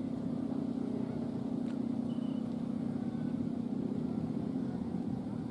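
The bow-shaped hummer (guangan) on a large Balinese kite droning steadily as the wind vibrates its taut string. It makes one unbroken low hum with fainter higher overtones.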